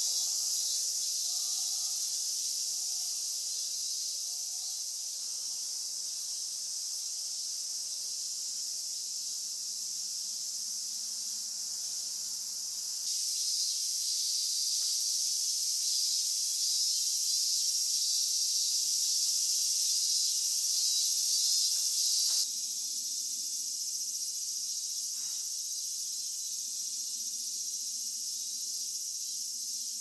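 Dense, steady high-pitched shrilling of an insect chorus, which gets louder about a third of the way in and drops back a little past two-thirds.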